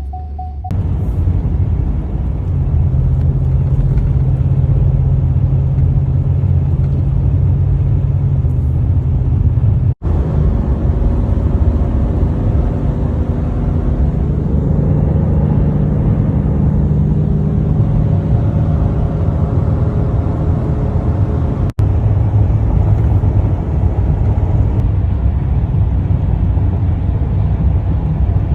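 Steady engine and road rumble of a work truck being driven, heard from inside the cab. The sound cuts out sharply twice, about ten seconds in and again about twenty-two seconds in.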